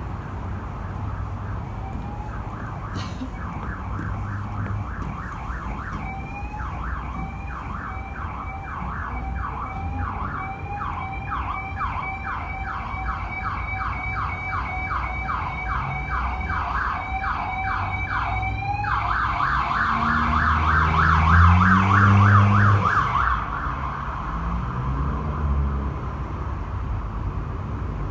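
Emergency vehicle siren in a fast yelp, rising and falling a couple of times a second, switching to a quicker warble about two-thirds of the way through and then fading away, over the steady rumble of highway traffic. A heavy engine climbs in pitch around the switch, the loudest moment.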